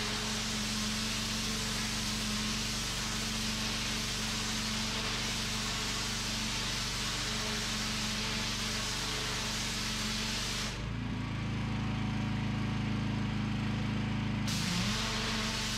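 Pressure washer running, its wand spraying water onto concrete with a steady hiss over the engine hum. About eleven seconds in the spray stops for a few seconds, leaving only the engine, whose note changes, and then the spray starts again.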